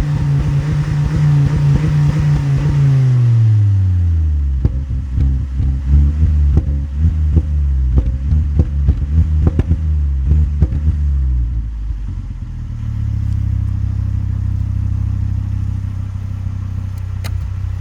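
Volvo V50 T5's turbocharged inline five-cylinder engine held at high revs, then the revs fall away and the exhaust crackles and pops with provoked overrun misfires for about seven seconds, the bangs softened by the middle silencer. After that the engine settles into a steady idle.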